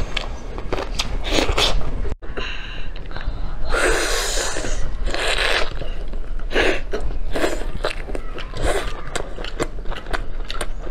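Close-miked eating of braised pork on the bone: biting, chewing and wet lip smacking, with a longer sucking rush a few seconds in. The sound drops out briefly about two seconds in.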